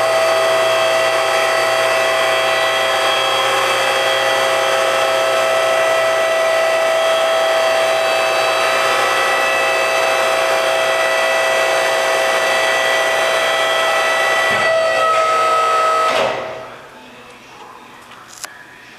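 Cives 155DC drum crusher's 5 HP electric motor and hydraulic pump running under load with a steady whine, cutting off about 16 seconds in. A single click follows near the end.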